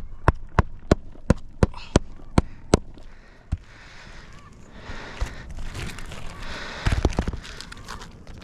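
A hammer driving a roofing nail into an asphalt shingle: about ten sharp, even strikes roughly three a second, then a last blow. After that comes scraping and rustling on the shingles, with a few knocks near the end.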